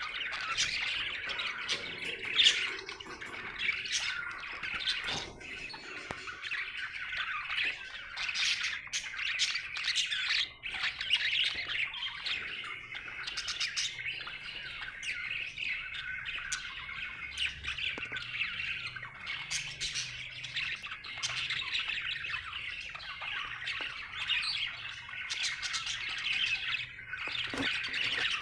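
Budgerigar chirping and chattering without pause: a busy, unbroken run of short chirps, squawks and clicks, the chatter of a happy budgie.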